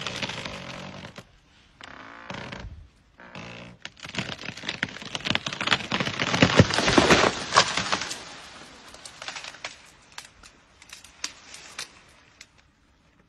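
Wooden tree trunk creaking and cracking under an African elephant's push, then a long burst of splintering wood and snapping branches as the tree breaks and falls, loudest about six to seven seconds in. It thins out to scattered cracks that fade away.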